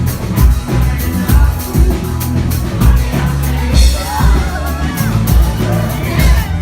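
Live rock band playing: a driving drum beat, a steady bass line and a singer's voice over it.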